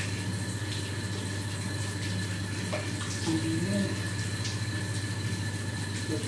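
Tap water running steadily while a wet cat is rinsed, over a steady low hum.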